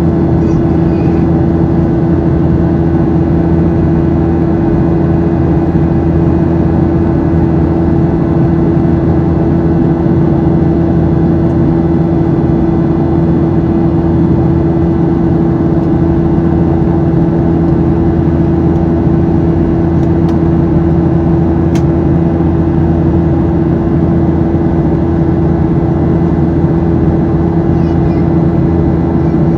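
Boeing 737-700's CFM56-7B turbofan engines heard from inside the cabin: a steady, loud drone with a strong constant hum tone, the engine buzz.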